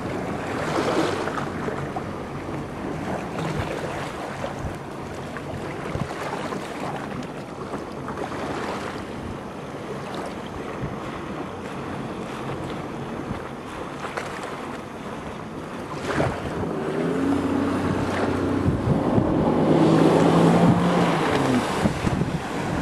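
Wind buffeting the microphone over choppy lake water, with a Sea-Doo personal watercraft's engine droning; the engine grows louder from about two-thirds of the way in as the craft comes closer.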